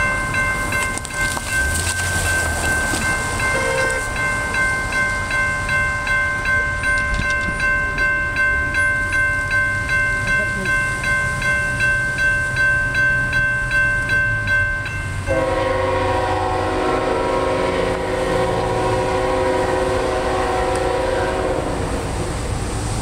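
Grade-crossing warning bell ringing steadily, about two dings a second. About 15 seconds in, the horn of an approaching CSX ET44AH diesel locomotive takes over with one long chord-like blast lasting several seconds, sounded for the crossing.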